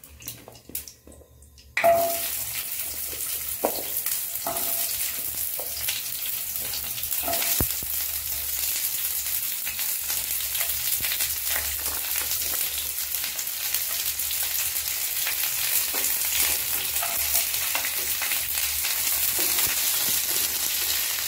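Onion wedges, garlic cloves and dried red chillies hitting hot oil in a nonstick pan, setting off a sizzle about two seconds in that carries on steadily as they are stirred with a silicone spatula.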